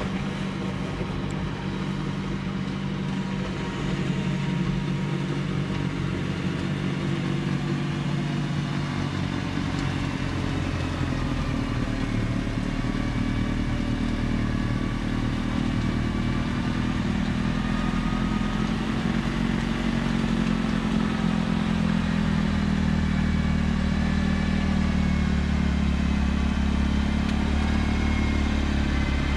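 John Deere 4052R compact tractor's diesel engine running steadily while driving a front-mounted Pronovost PXPL-80 snowblower as it clears snow. The engine pitch wavers up and down through the middle, and the low engine sound grows stronger in the second half.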